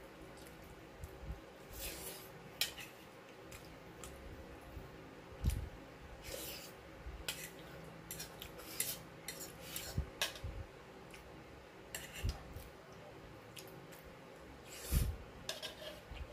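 Cutlery clinking and scraping on a plate in irregular short clicks as a person eats pasta.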